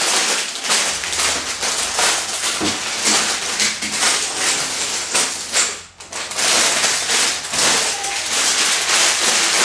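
Clear plastic bags full of LEGO pieces crinkling and rustling as they are picked up, moved and set down in a pile, with a brief lull about six seconds in.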